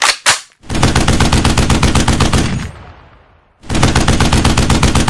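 Machine-gun sound effect: two sharp clicks, then two long bursts of rapid automatic fire, each trailing off in a fading echo.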